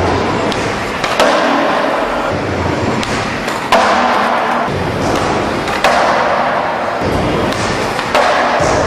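Skateboard wheels rolling over wooden ramps and a concrete floor, with background music that repeats a phrase, each starting with a hit, about every two and a half seconds.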